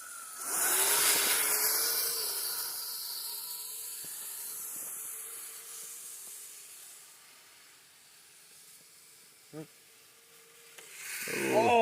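Electric tracked RC snowcat (Kyosho Blizzard) driving off over rough ground: a hiss of tracks churning with a faint motor whine, loudest about a second in and then fading steadily as it moves away. A short sharp knock comes near the end.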